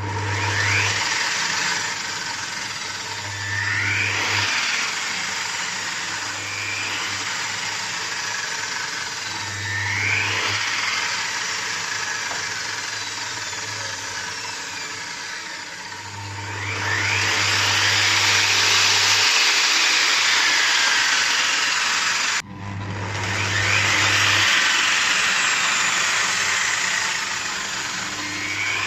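Sliding compound miter saw motor fitted with a soft-start module, switched on several times: each time it winds up in pitch, then spins down.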